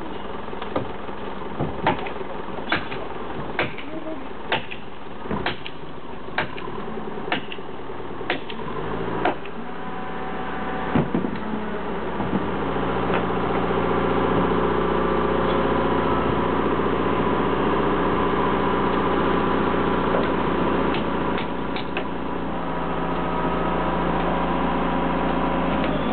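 Sharp knocks about once a second. From about nine seconds in, a crane's engine rises and runs steadily as the crane hoists a long timber beam.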